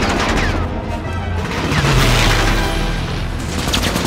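Fighter plane's wing-mounted machine guns firing in a sustained fusillade at a train, with impacts and the plane's engine in a film soundtrack, over an orchestral score.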